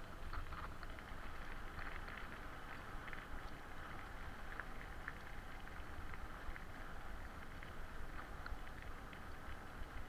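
Bicycle rolling along a path, its tyres giving a steady rumble with wind buffeting the microphone, and scattered faint ticks over it.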